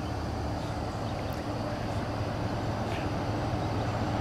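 Distant approaching Amtrak passenger train: a steady low rumble and hum that grows slowly louder.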